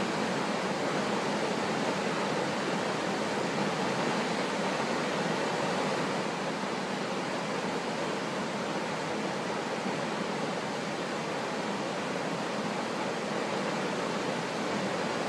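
Waterfall: a steady rush of heavy falling water.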